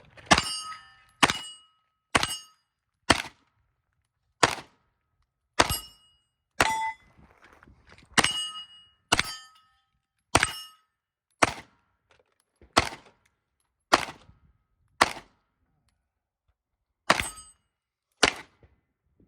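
A Glock 19 9mm pistol fired at steel targets in a string of about seventeen shots, roughly one a second, with a pause of about two seconds near the end. Many shots are followed by the high, ringing ding of a steel plate being hit.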